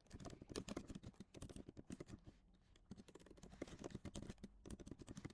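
Typing on a computer keyboard: a fast, faint run of key clicks, with a short pause a little over two seconds in.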